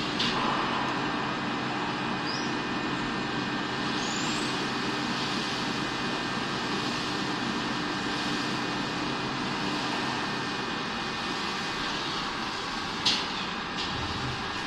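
CNC milling machine running steadily while thread milling: a constant hiss with steady tones, and one sharp click near the end.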